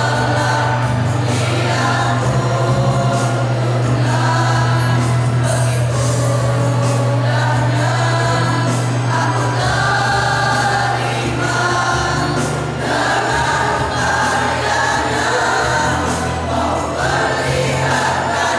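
A choir of boys singing together into stage microphones, holding long notes that change every second or so, with a steady low tone underneath.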